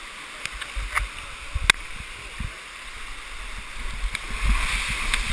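Rushing white water of a canyon stream pouring down a rock chute, close to the microphone, with splashing and a few sharp knocks and low thumps as the body slides down through it; the rushing swells louder near the end.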